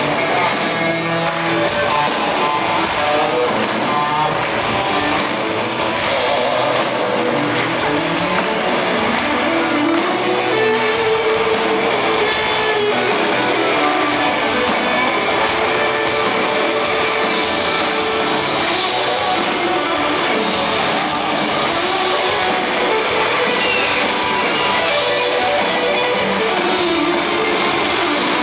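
Live rock band playing at steady full volume, led by electric guitar over a drum kit with regular cymbal and drum hits.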